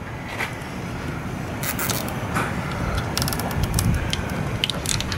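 A quick run of small clicks and rustles, as of wiring being handled, over a steady low rumble.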